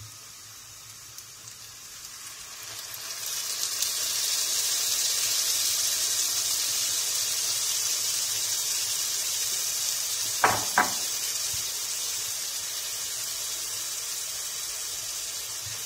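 Home-made tomato sauce sizzling as it hits a hot frying pan of sautéed onions. The hiss builds over the first few seconds, then keeps going steadily. There is one brief sharp sound about ten seconds in.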